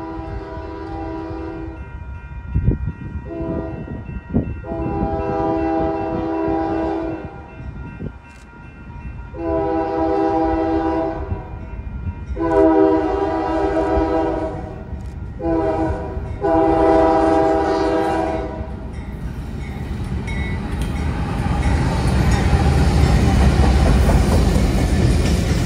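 Union Pacific freight diesel locomotive's multi-note air horn sounding a series of blasts as the train approaches, ending in the long-long-short-long grade-crossing signal. Then the locomotives' diesel engines rumble louder and louder as they pass close by.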